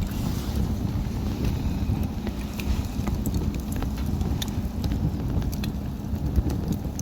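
Wood fire crackling, with scattered sharp pops at irregular intervals over a steady low rumble.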